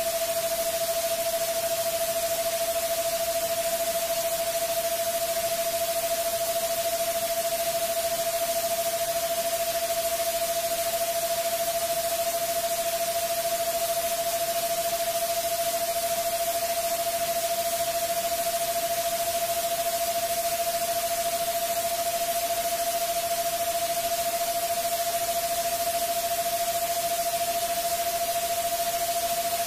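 Steady electronic hiss like white noise, with a single unwavering mid-pitched tone held over it: a synthesized 'subliminal frequency' sleep track.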